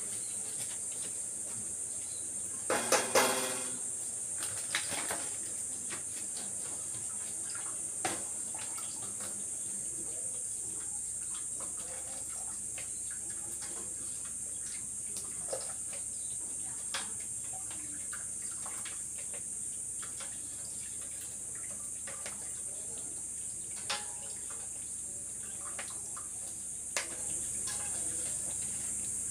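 Cookware at a stove clattering: a loud ringing metal clatter about three seconds in, then a few lighter single clicks, over a steady high-pitched hiss.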